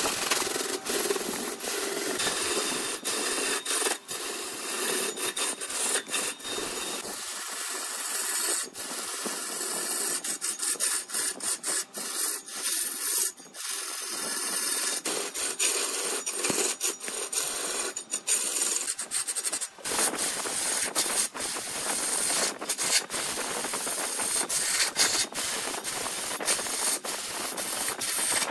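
A hand tool working a spinning wood workpiece on a lathe: a steady hissing scrape, broken by many brief gaps.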